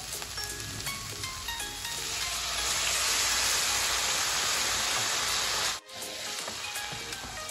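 Half a cup of water hitting a hot kadai of sautéed capsicum, peas and tomato, bursting into a loud steaming hiss about two seconds in that cuts off suddenly near the end. Lighter frying sizzle before it, and soft background music throughout.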